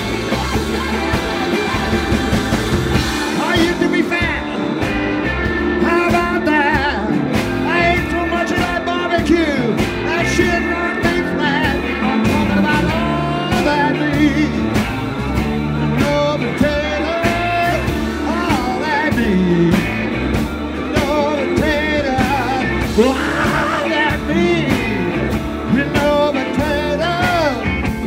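Live blues-rock band playing an instrumental passage: an electric guitar lead with bent, wavering notes over drums, bass and keyboard.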